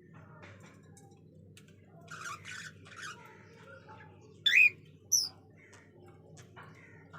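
Caged pet budgerigars and cockatiels calling: some soft chattering, then two loud, shrill squawks about two-thirds of a second apart a little past the middle.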